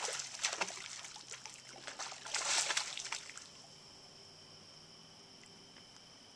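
Lake water splashing and trickling against shoreline rocks, with irregular sloshes for about three seconds, the loudest near the middle. After that it dies away to a faint steady high-pitched drone.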